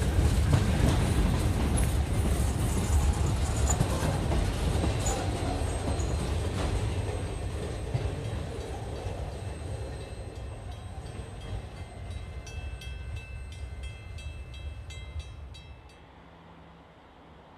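Freight train of covered hopper cars rolling past on the rails, the wheel rumble fading steadily as the last cars move away, with sharp clicks as it goes. Near the end the sound drops suddenly to quiet.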